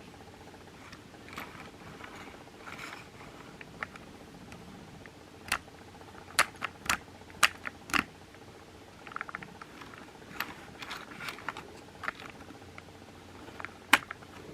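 Handling noise: rustling and a series of sharp clicks and knocks from small hard objects being picked up and set down, clustered in the middle and with one more near the end, over a faint steady hum.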